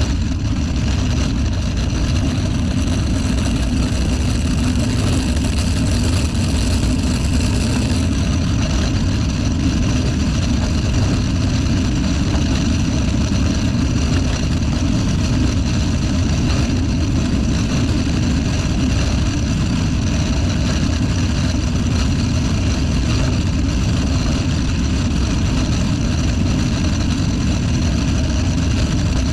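A car driving at a steady speed, with engine and road noise running evenly throughout.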